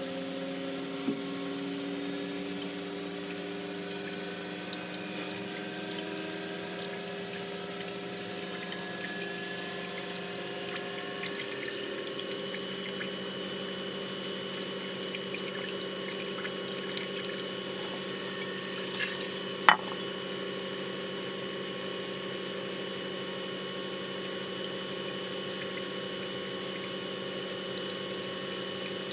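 Tap water running steadily, with tones that rise slowly for the first ten seconds or so and then hold steady. One sharp knock comes about twenty seconds in.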